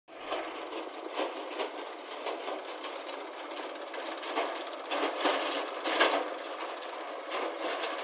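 Diesel engine of a JCB 3DX backhoe loader running under work, with irregular clanks and knocks, the loudest about five and six seconds in. The sound is thin, with no bass.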